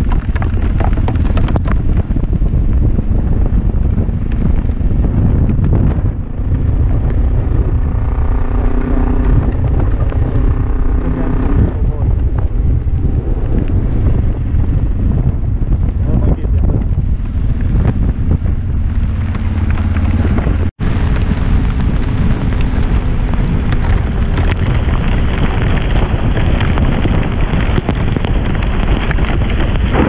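Motorcycle ridden in heavy rain: steady wind noise on the microphone over engine and wet-tyre noise. A steadier pitched engine note comes through about a third of the way in, and the sound cuts out for an instant about two-thirds through.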